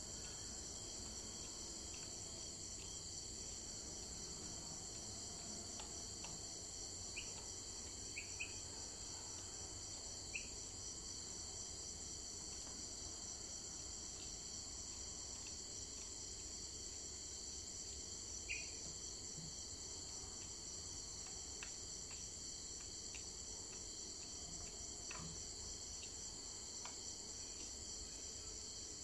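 Steady high-pitched insect chorus with a fine pulsing trill, joined a few times by brief short chirps.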